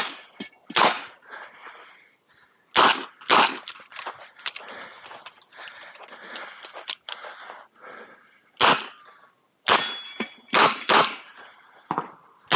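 Smith & Wesson 929 9mm revolver firing about eight shots in uneven pairs and singles, each a sharp crack with a short echo. A gap of about five seconds in the middle holds only quieter rustling and clatter.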